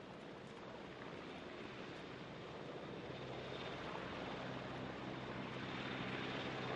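A flight of MCH-101 (AgustaWestland AW101) helicopters, their turbine and rotor noise a steady rumble with a low hum that grows louder as they approach.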